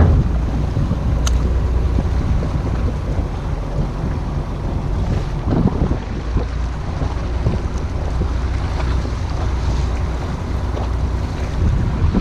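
Wind buffeting the microphone over the wash of waves against a fishing boat's hull, a steady low rush.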